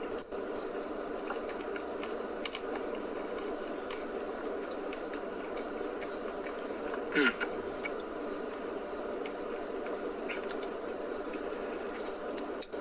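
A steady hiss with a high buzzing edge, broken by a few faint clicks and a brief louder sound about seven seconds in.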